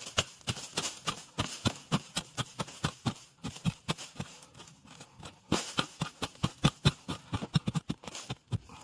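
A digging hoe striking soil and roots again and again while winter bamboo shoots are dug out: sharp, irregular knocks, a few each second, coming thicker in the second half.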